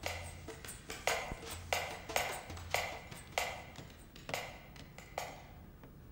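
Footsteps of hard-soled shoes on a tiled floor, about two a second and ringing slightly in the room. They grow fainter as the walker moves away and stop a little after five seconds in.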